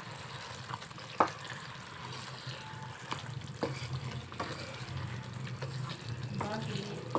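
Chicken pieces sizzling and bubbling in a reducing gravy in a pan as a wooden spatula stirs them, with a few sharp clicks of the spatula against the pan. The added water has half cooked off, so the gravy is thickening and beginning to fry.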